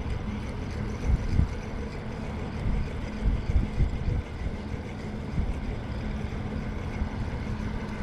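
Wind buffeting the microphone in irregular low gusts over a steady outdoor rush, with a faint low steady hum underneath.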